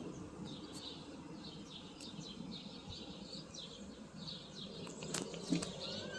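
A bird chirping over and over in short, quick, falling notes, over a low steady rumble, with a sharp click about five seconds in.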